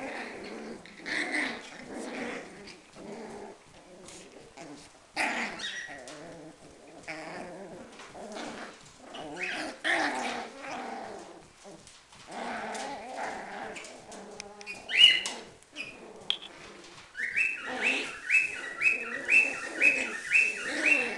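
Schipperke puppies play-fighting: scattered growls with a few sharp yelps, then near the end a run of about nine high-pitched yips, two or three a second.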